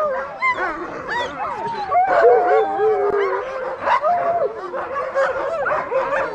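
A chorus of sled huskies on a stake-out line yipping, barking and howling at once, many voices overlapping, with longer held howls about two to three seconds in.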